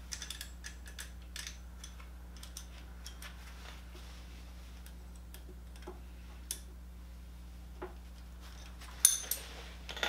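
Steel wrenches clicking and clinking against each other and against the lock nut as it is tightened on the rear brake master cylinder's spring perch: scattered light metal ticks, busiest in the first second and a half, and a louder ringing clatter of metal about nine seconds in.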